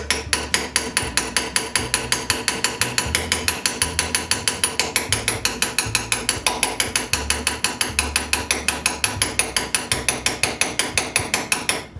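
Rapid, even hammer blows on a cold chisel, about seven a second, as a light 12-ounce hammer drives the chisel through 22-gauge sheet steel clamped in a bench vise, shearing it along the vise jaw. The thin steel rings with each strike.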